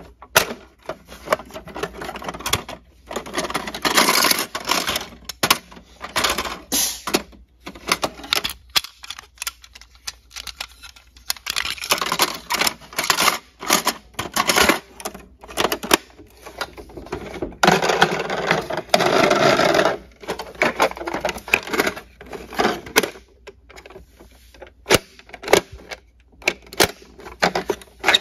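A plastic toy ambulance being handled: irregular clicks and clacks of its plastic body and rear doors, with bursts of scraping and rustling against the cardboard box.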